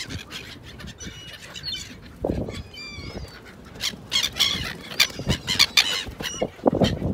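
Gulls calling with short squealing cries and flapping wings close by, as they flock around a person feeding them. A couple of muffled low thumps about two seconds in and near the end, the later one the loudest.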